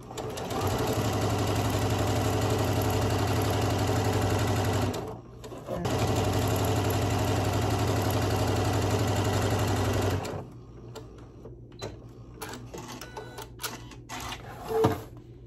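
Janome M7 sewing machine stitching quilt fabric pieces in two steady runs of about five seconds each with a short stop between. It is followed by a few light clicks, the loudest one near the end.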